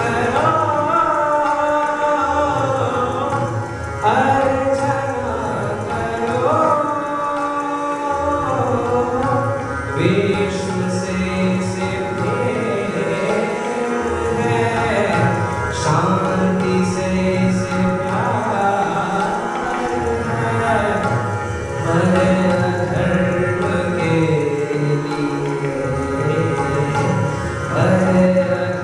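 A boy singing a Hindi patriotic song into a microphone, with held, gliding notes over instrumental accompaniment and a steady drum beat.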